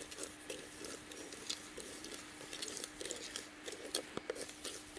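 Raw rice dry-roasting in a clay pot over a wood fire: irregular light crackling and clicking, with a faint steady hum underneath and a sharper click about four seconds in.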